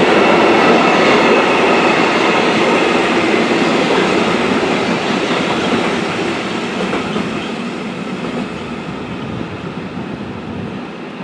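Freight train of empty stake wagons rolling past on the rails, its wheels running steadily. The noise fades from about halfway through as the last wagons pull away.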